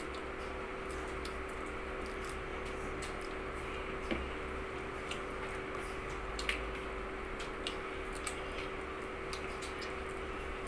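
Eating by hand at a table laden with crab and shrimp: scattered small clicks and squishy crackles of shells being picked apart and food being chewed, with a couple of sharper clicks about four and six and a half seconds in. A steady hum runs underneath.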